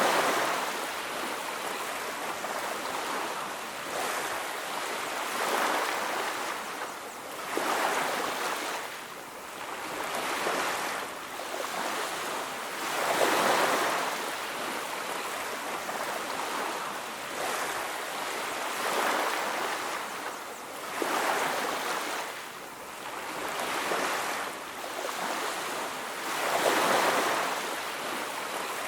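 Ocean surf washing onto a beach, waves breaking and receding in swells every few seconds, with the biggest surges near the start, about halfway through and near the end.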